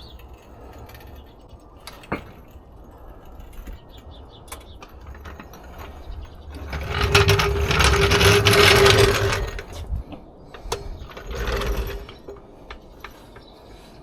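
Mechanical ratcheting and rattling from car-work tools or equipment. It is loudest for about three seconds in the middle, with a steady hum running through it, and comes again briefly near the end.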